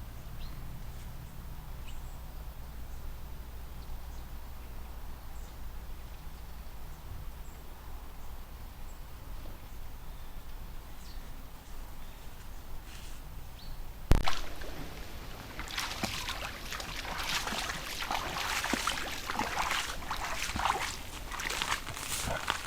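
Low steady hum with a few faint ticks, then a single sharp click about two-thirds of the way through, followed by dense rustling and crackling of undergrowth close to a trail camera's microphone.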